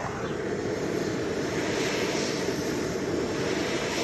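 Gas torch flame burning steadily, a constant rushing noise.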